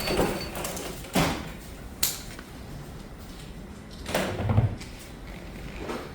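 Sharp metal knocks and clunks from tools working on a car's front suspension, where a stuck part will not come free. The heaviest thud comes about four and a half seconds in.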